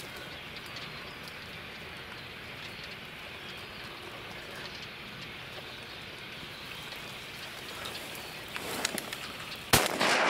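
Steady hiss of open marsh ambience with wind through dry reeds and a few faint ticks, then a sharp crack near the end followed by louder rustling.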